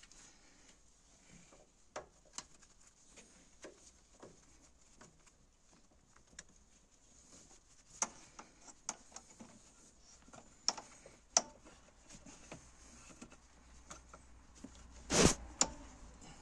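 Scattered clicks and taps of a screwdriver and gloved hands working on the metal hose clamps and intake pipe beside a VW T4 diesel's EGR valve, the engine off. Near the end comes one louder, brief rasp, most likely as the pipe is worked loose from its hose.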